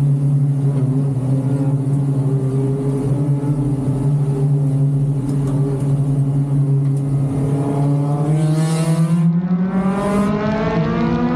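Race car engine heard from inside the car, running at a steady speed, then rising in pitch over the last three seconds as the car accelerates.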